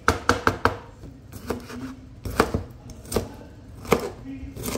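Kitchen knife chopping cucumber on a cutting board while dicing it finely. A quick run of about four sharp chops at the start, then single chops about once a second.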